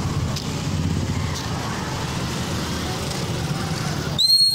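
Motorcycle engines running as a line of motorbikes rides past, a steady low rumble. About four seconds in comes a short, shrill whistle blast, the loudest sound here.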